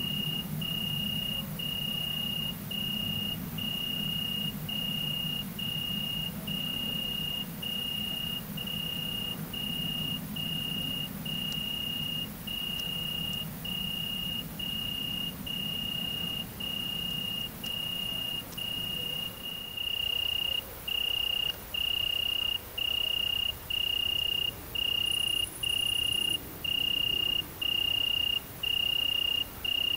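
An insect singing at night: a clear, high, even trill cut into short phrases repeated a little more than once a second. A low hum underneath stops about two-thirds of the way through, and from there the trills are louder.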